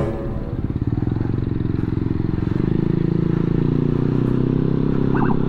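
Motor scooter engine running steadily at low speed: a close, even drone with a fast pulsing beat.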